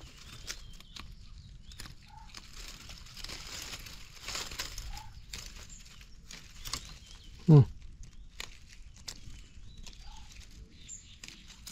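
Hands snapping young wild phak wan shoots off the bush and rustling through stems and dry fallen leaves, in scattered small cracks and rustles. About seven and a half seconds in, there is one brief, much louder low sound.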